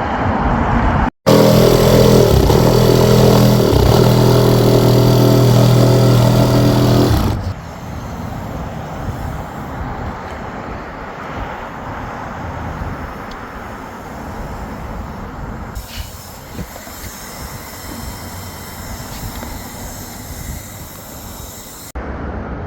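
Outdoor traffic-like noise, then, after an abrupt cut, a loud steady machine hum with a low, even drone for about six seconds. It cuts again to quieter steady outdoor background noise.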